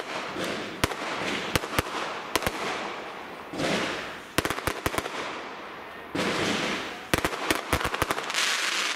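Aerial fireworks going off: sharp bangs and crackling over a steady hiss, with rapid clusters of reports about four and a half seconds and seven seconds in.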